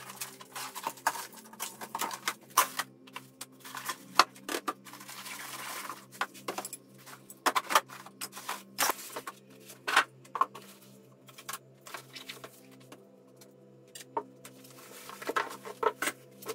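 Handling noise from unpacking a cardboard box: flaps and foam packing handled, and plastic-wrapped machine parts rustling and set down on a metal workbench. It comes as a string of irregular sharp knocks and clunks, with a longer scraping hiss about five seconds in.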